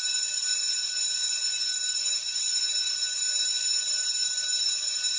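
A school bell ringing without a break, a shrill steady ring.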